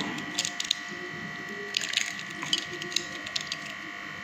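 Eggshell crackling and crunching in short scattered crackles as fingers break and peel it open, over a steady faint high-pitched electrical hum.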